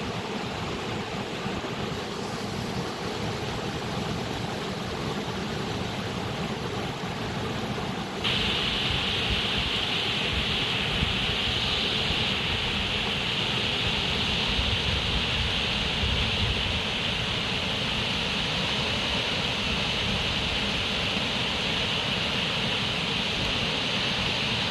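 Steady rushing of running water. About eight seconds in it turns abruptly louder and hissier, then goes on steadily.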